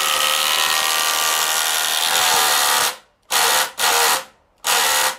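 Panasonic EZ1PD1 18 V impact driver hammering a Simpson Strong-Tie SDWS timber screw into timber. It runs in one long continuous drive, then in three short trigger bursts near the end as it struggles to pull the screw head down, getting it only just flush.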